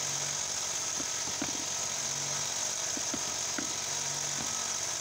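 Boat engine idling steadily under a constant high hiss, with a few faint knocks.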